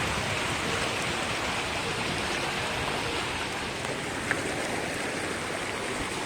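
Waterfall's water rushing, a steady even hiss with no change in level.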